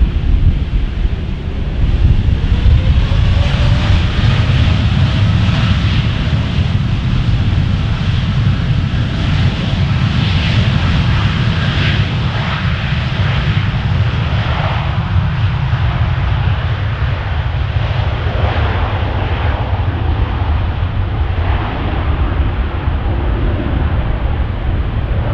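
Boeing 787-8's twin GE GEnx-1B turbofan engines running up for takeoff: a loud, steady deep rumble, with a faint whine that rises in pitch over the first few seconds as thrust builds.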